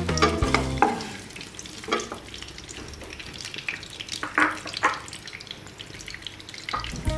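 Hot mustard oil sizzling and crackling in a non-stick wok as boiled eggs are lifted out with a wooden spatula, over a lowered flame. The sizzle is busiest in the first second, then settles to a quieter, steady crackle with a few louder pops.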